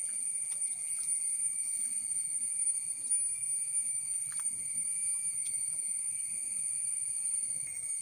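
Insects droning steadily at a high pitch, over a soft, uneven rustle of footsteps on a leaf-strewn dirt path.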